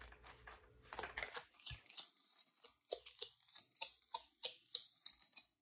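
Tarot cards being handled and laid out: a faint string of light, irregular card clicks and snaps, about three or four a second.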